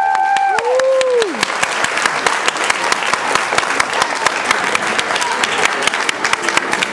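The last notes of a folk-song tune end about a second in, then an audience applauds with a dense patter of many hands clapping.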